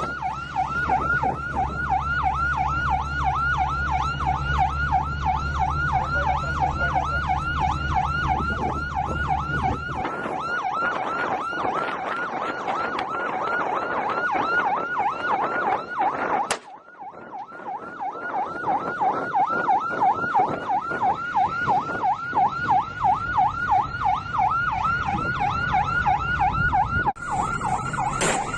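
Patrol boat siren in a fast yelp, its pitch sweeping up and down about three times a second. A low engine drone runs under it for the first ten seconds, and the siren breaks off briefly a little after halfway.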